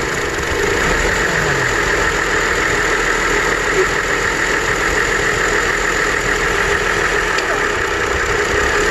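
GMC Envoy's 4.2-litre inline-six idling steadily with a misfire on cylinder number 3. That cylinder's connector is unplugged and the idle does not change, showing cylinder 3 was already dead.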